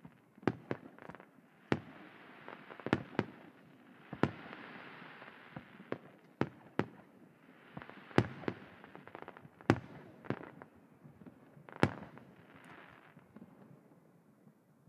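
Aerial firework shells bursting overhead: a quick irregular series of about fifteen sharp bangs of differing loudness, with a noisy rumble and hiss between them, dying away in the last couple of seconds.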